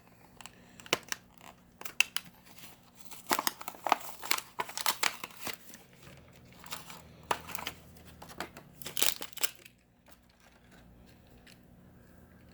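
Plastic blister packaging and its card backing being torn open and crinkled to free a die-cast toy car: a run of sharp crackles, snaps and tearing that stops near the end.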